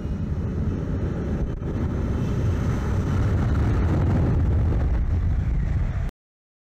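F-35B jet engine at full power on a short take-off run. The steady jet noise builds over the first few seconds, with a faint rising whine above it, and it cuts off suddenly near the end.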